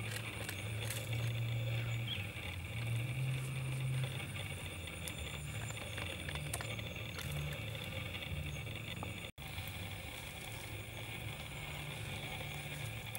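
A stick poking and scraping in a small hole in bare rock, heard as scattered small clicks over a steady high-pitched hum and a low rumble. The sound cuts out for an instant about nine seconds in.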